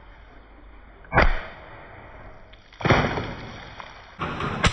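Spring-piston air gun firing pellets at hanging water balloons: a sharp crack about a second in, then two longer noisy bursts near the middle and the end as balloons burst and water spills onto the tiled floor.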